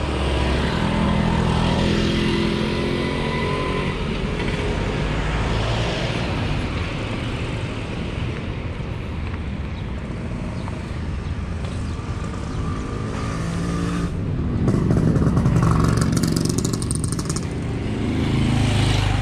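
Road traffic: car and motorcycle engines running close by. One vehicle passes loudly a little after two-thirds of the way through, and another swells up near the end.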